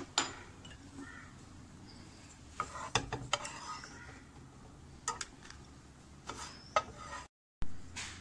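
Wooden spatula scraping and knocking against a nonstick frying pan as fried dried red chillies are lifted out of the oil: scattered clicks and taps about a second apart.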